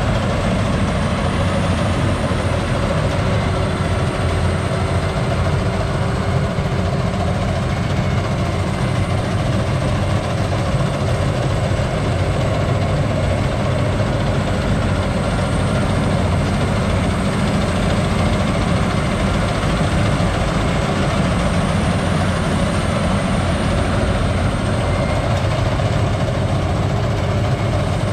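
Rice combine harvester's diesel engine and threshing works running steadily as it harvests flattened, storm-lodged rice.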